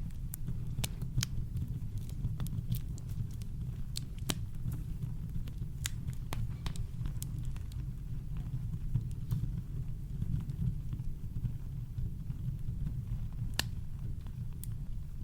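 Campfire crackling: scattered sharp pops and snaps, a few louder ones about four seconds in and near the end, over a steady deep brown-noise rumble.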